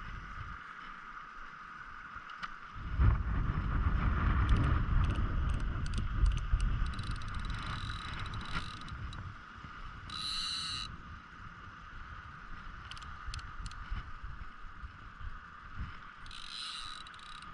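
Fishing reel being worked against a fish snagged in brush: mechanical clicking and winding, with a low rumble of rod and boat handling for several seconds.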